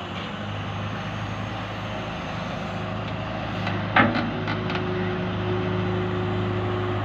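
John Deere excavator's diesel engine running steadily as it digs a pit, with a single sharp knock about four seconds in and a steady higher tone joining the engine sound just after.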